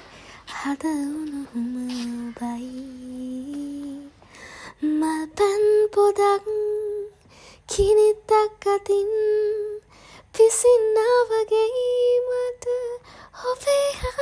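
A woman's voice singing a slow Sinhala song in long held, gliding notes, with short pauses between phrases.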